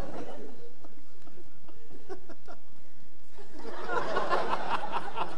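Theatre audience laughing after a punchline: scattered chuckles at first, swelling into broader laughter about four seconds in.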